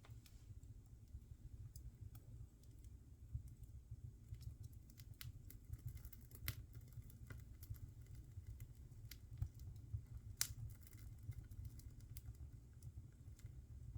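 Wood fire crackling in a fireplace: irregular small pops and snaps over a low steady rumble, with two louder snaps, one about halfway through and one about three-quarters of the way through.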